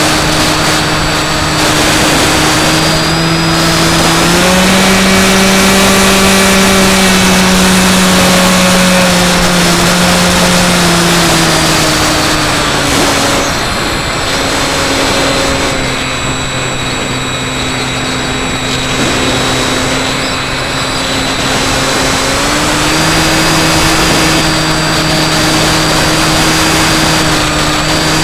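Skywalker X5 flying wing's electric motor and propeller running, heard from its onboard camera over a constant rush of airflow. The hum and a high motor whine step up in pitch about four seconds in, drop back around twelve to fourteen seconds, and rise again a little after twenty-two seconds as the throttle changes.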